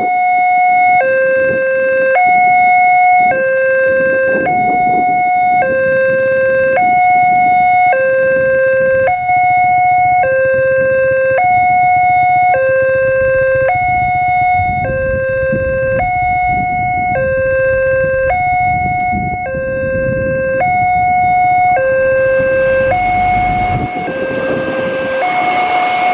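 Level-crossing warning loudspeaker sounding its electronic two-tone alarm: a high note and a low note alternating evenly, each held a little over a second. Near the end the rising rush and rumble of the approaching Prameks diesel multiple unit joins it.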